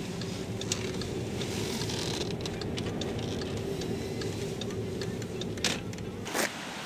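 Car engine and road noise heard from inside the cabin while driving, a steady low rumble with a faint hum; two sharp clicks near the end.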